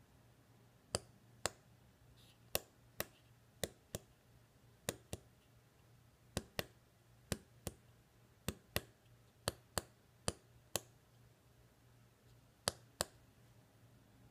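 Small push buttons clicking: about twenty sharp clicks, mostly in quick pairs a fraction of a second apart, with a longer pause before a last pair near the end.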